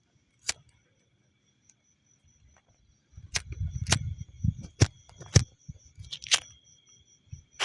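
Steady high insect trilling with a few sharp clicks, and low rumbling handling noise from about three seconds in.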